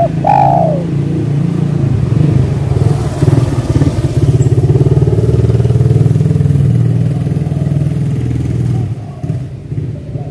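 A motor vehicle engine running close by, loud and steady, dying away about nine seconds in. A spotted dove's coo sounds briefly at the very start.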